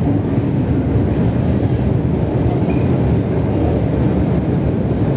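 Steady low rumble of an MTR metro train moving through an underground station.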